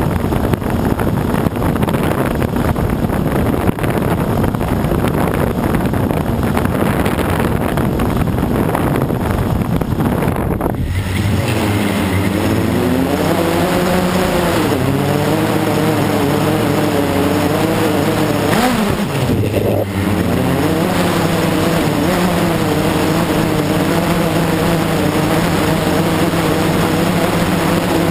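Blade 350 QX quadcopter's motors and propellers, heard from its onboard GoPro. For the first ten seconds or so wind noise on the microphone covers everything; then a hum whose pitch rises and falls as the motors change speed, with a brief dip and rise a little after halfway.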